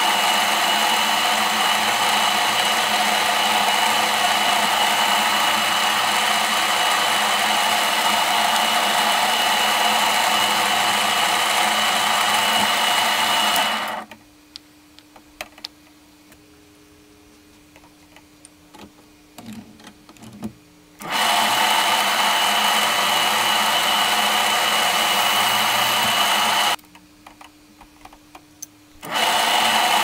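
Bench drill press running steadily with a whine while drilling holes through a folding-knife handle. It stops about 14 seconds in, leaving a few small clicks of handling. It runs again for about six seconds, stops briefly and starts once more near the end.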